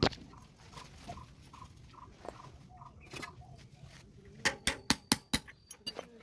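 Sharp metal-on-metal strikes on a bicycle wheel hub as a tool is knocked against the worn ball-bearing cup to drive it out: one knock at the start, then a quick run of about six strikes near the end.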